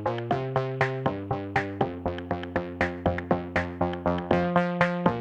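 Background electronic music: quick, evenly repeating synth notes, about four or five a second, over chords that change every second or so.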